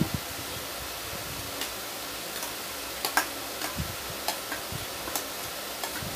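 A metal spoon scraping and clinking against a stainless-steel serving bowl as food is scooped out onto a steel plate, a handful of short sharp clinks scattered over a steady background hiss.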